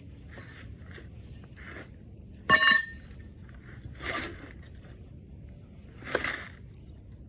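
A single loud metal clang about two and a half seconds in that rings briefly, with quieter scrapes and clinks of metal being handled around it, during work on a Wisconsin V4 engine teardown.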